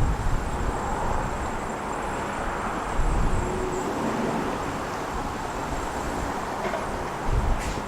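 Strong gusty wind on the microphone: a steady rushing noise, with a low buffeting rumble that eases through the middle and picks up again near the end.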